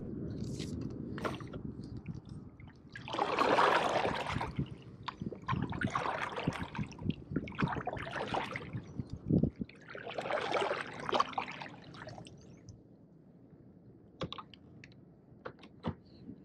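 Water splashing and sloshing at the side of a kayak in four or five separate bursts, then dying down, with a few small sharp clicks near the end.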